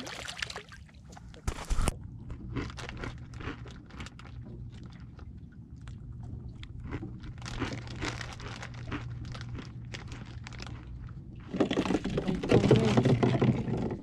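Irregular crackling and clicking over a steady low hum, with a sharp knock about two seconds in; it grows louder near the end.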